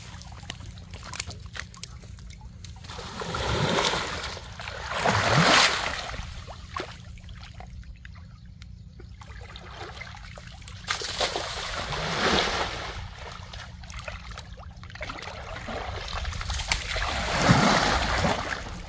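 Muddy pond water splashing and sloshing as people wade chest-deep through it, bending to grope in the water. It comes in four swells: about three and a half seconds in, around five seconds, around eleven to twelve seconds, and loudest near the end.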